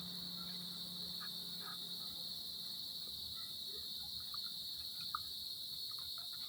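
Steady, high-pitched chorus of insects such as crickets, with a few faint soft clicks scattered through it.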